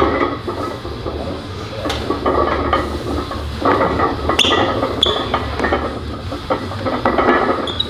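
Heavily loaded barbell, about 616 lb of plates, clinking and rattling with short metallic rings while a strongman squats under it, with bursts of hard breathing and straining. A steady low hum runs underneath.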